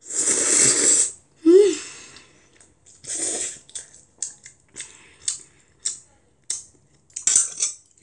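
A child slurping a mouthful of Chapagetti instant black-bean noodles, one loud slurp about a second long, then chewing with open-mouthed wet smacks, a few short ones spread out over several seconds.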